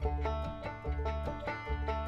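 Background music: fast-picked plucked strings in a bluegrass style over a pulsing bass.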